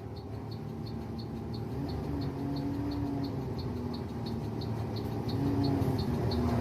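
Bus turn-signal flasher ticking evenly, about three clicks a second, over the bus engine running, which grows steadily louder.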